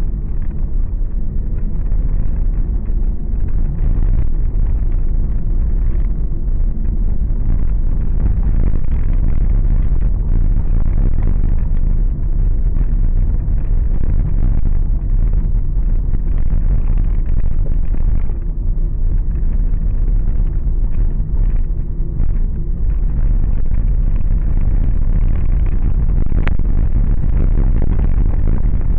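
Steady, loud low rumble of a car's engine and tyres on a rough asphalt road, heard from inside the moving car, with one sharp tick near the end.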